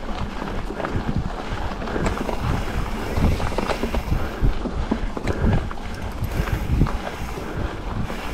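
Wind buffeting the microphone of a camera riding on a mountain bike, with frequent irregular low thumps and short knocks from the bike going over rough trail.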